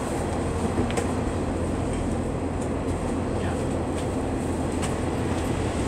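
Cabin noise inside a Class 142 Pacer diesel multiple unit: a steady rumble and hiss, with a few faint clicks.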